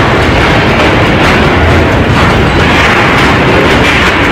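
A building shaking in an earthquake: a loud, steady rumbling din with no separate knocks standing out.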